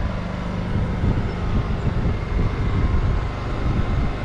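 Steady running of an electric AC vacuum pump evacuating a swather's air-conditioning system to pull out moisture, powered by a Honda portable generator running alongside.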